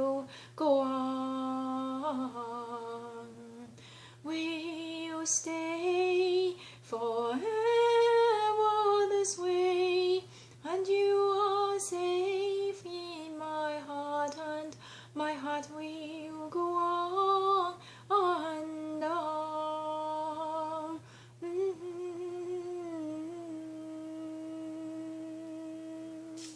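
A woman's voice humming a slow melody without words, with vibrato on sustained notes and short breaks for breath, ending on one long held note.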